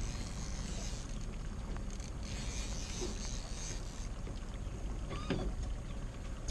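Steady background noise aboard a drifting river boat: a low, even rumble with water and wind hiss that swells and fades every second or two.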